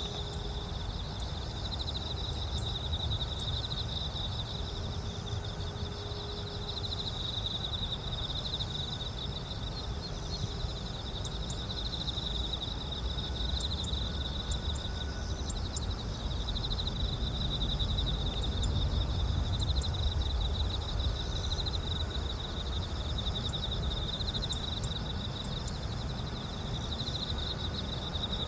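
Insects chirring steadily in a fast pulsing trill, over a low rumble that swells a little around the middle.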